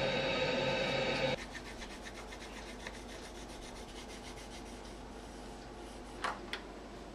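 Coloured pencil shading quickly back and forth on paper, a fast, scratchy rubbing. At first it sits under a louder, steady drone of several held tones, which cuts off abruptly about a second in.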